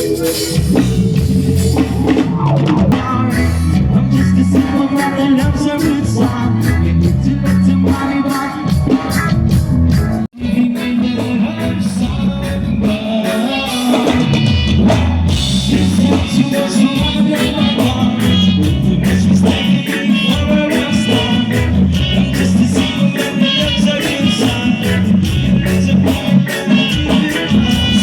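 Live band playing a song: singing over drum kit, guitar and a prominent stepping bass line. The sound drops out for an instant about ten seconds in.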